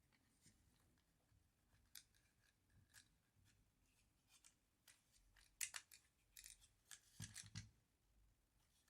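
Light, sharp metallic clicks and small scrapes of airsoft 1911 pistol parts being handled during hammer installation, scattered at first and then coming in a quicker, louder run in the second half.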